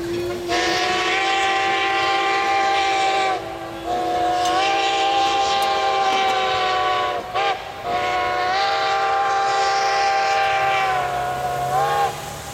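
Strasburg Rail Road #90's steam whistle, a 2-10-0 Decapod steam locomotive, blowing the grade-crossing signal: long, long, short, long. Each long blast lasts about three seconds.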